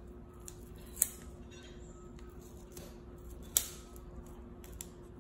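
Small foil wet-wipe sachet being crinkled and torn open by hand: light crackling with two sharp snaps, about a second in and again past halfway.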